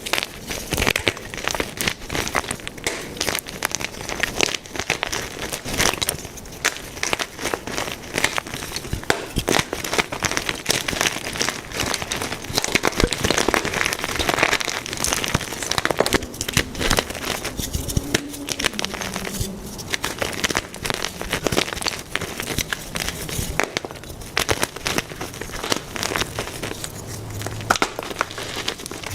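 Blocks of white gym chalk being crushed and crumbled, a continuous crisp crunching and crackling made of many small snaps.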